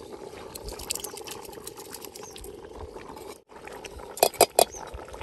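Soaked rice poured from a steel bowl into a large pot of boiling dal, with a steady boiling sound underneath. About four seconds in come three sharp metal clinks, the loudest sounds, as a metal dish knocks against the pot's rim.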